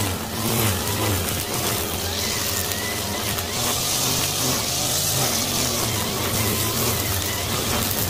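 Engine-driven grass trimmer with a nylon line head, running steadily at cutting speed as the spinning line cuts lawn grass.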